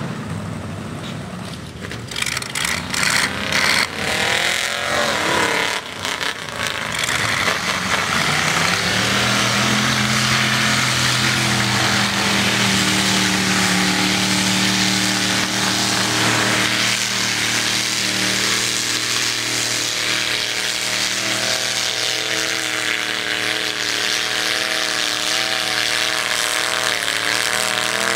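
Lifted mud-bog 4x4 truck engine revving up and down, then holding a steady high rev for the rest of the time, with a spell of crackling knocks near the start.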